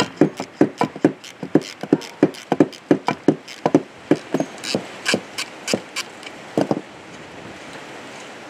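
Rapid, sharp tapping knocks, about three a second, as the broken wooden handle stub is worked out of the steel socket of an old post hole digger. The knocks stop near the end.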